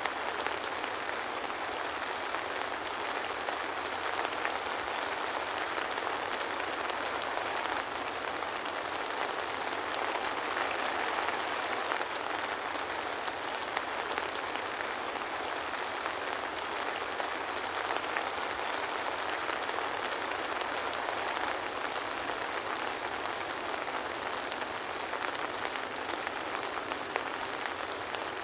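Steady soft rain falling on a surface, an even hiss with scattered small drop ticks and no thunder.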